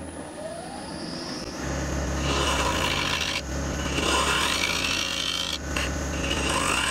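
Half-inch spindle gouge cutting across the face of an olive ash blank spinning on a wood lathe, truing up the face: a rasping hiss of shavings over the lathe's steady hum. The cut grows louder about a second and a half in, and its pitch rises several times as the gouge sweeps across the face.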